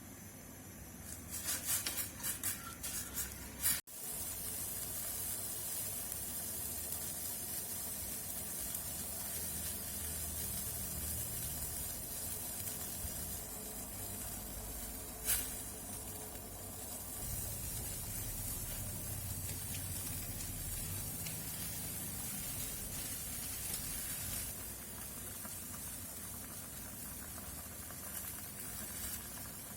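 A burst of clicks and clatter, then a steady hiss of food cooking on the stove that runs on, with a single sharp click about fifteen seconds in.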